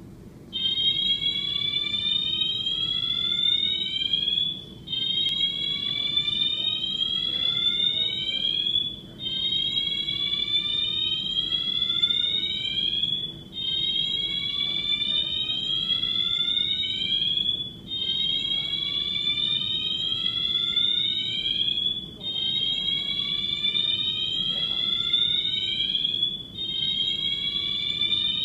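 Fire alarm siren sounding, starting about half a second in: a loud rising whoop, each sweep about four seconds long and climbing in pitch, repeated seven times with short breaks between.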